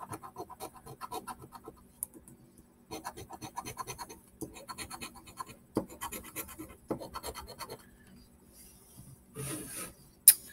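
A scratch-off lottery ticket being scratched in quick, rapid strokes, in several runs of a second or two with short pauses between. There is a sharp click near the end.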